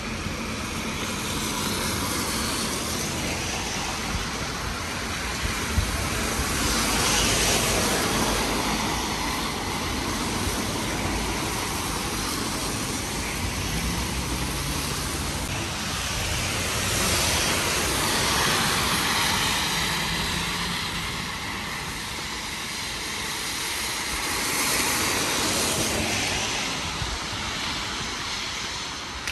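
Cars passing on a wet road, their tyres hissing over a steady background hiss. Three passes swell up and fade away: about seven seconds in, around eighteen seconds, and near twenty-five seconds.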